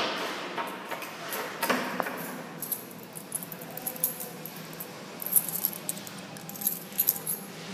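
Metal clinking and jingling as a padlock and chain rattle against a brass door bolt, with a few sharp knocks in the first two seconds and a flurry of jingles about five to seven seconds in.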